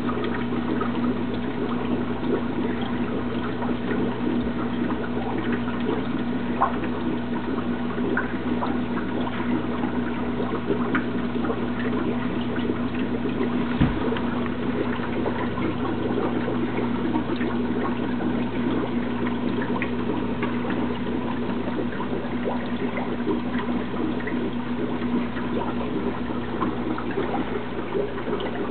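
Marineland Magnum 350 aquarium filter running: steady trickling and splashing of water over a constant low motor hum, with scattered light ticks and one short knock about halfway through.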